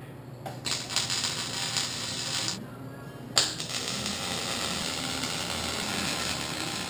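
MIG welding on a steel-pipe frame: one weld of about two seconds, a pause of under a second, then a second weld that starts sharply and runs on steadily.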